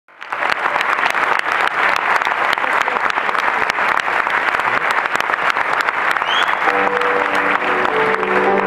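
Audience applauding. About seven seconds in, a folk string band of violins, cimbalom and double bass begins to play, with held notes rising under the clapping.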